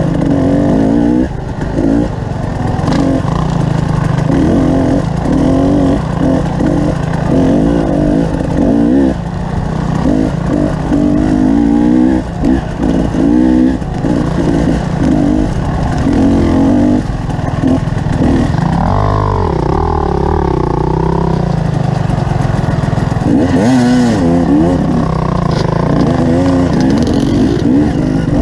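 Motorcycle engine running under way, its pitch rising and falling as the throttle opens and closes.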